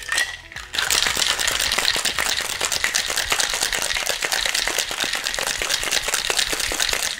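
Ice cubes rattling hard inside a Boston shaker, a steel tin capped over a mixing glass, shaken vigorously to chill and mix a cocktail. A fast, steady rattle that starts about a second in.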